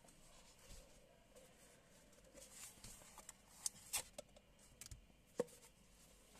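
Quiet handling of a sunglasses case and sunglasses: faint rustling as the case is opened, a few light clicks, and one sharper tap near the end as the sunglasses are set down on the table.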